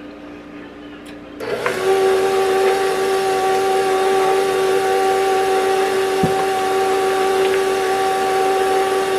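KitchenAid Professional 5 Plus bowl-lift stand mixer coming up to speed about a second and a half in, then running with a steady hum as its flat beater mixes cream-cheese batter at low speed while the eggs are worked in.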